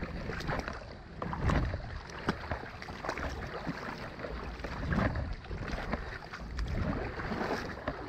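Creek water splashing and flowing, with irregular small splashes and clicks, and wind buffeting the microphone in low rumbling gusts about a second and a half in and again around five seconds.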